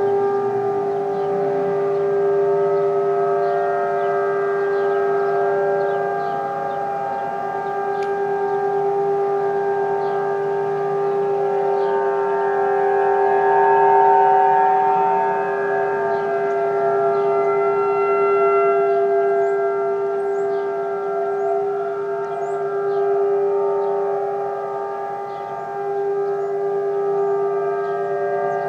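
Several distant outdoor warning sirens, Federal Signal models including a 2001-SRN and Model 1003s, sounding the steady alert tone together in a siren test. The steady pitches form a chord that swells and fades every few seconds as the rotating siren heads sweep past.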